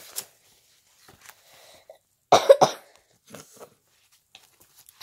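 A child coughing two or three times in quick succession about halfway through, with faint taps and rustling from a book being handled.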